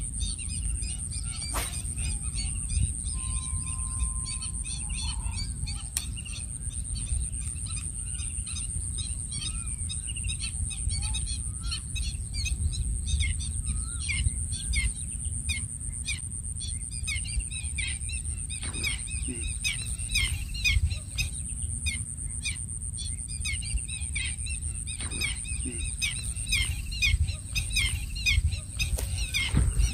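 Wind rumbling on the microphone over open water, with many small birds chirping in quick short calls that come thicker in the second half, and a thin steady high-pitched tone.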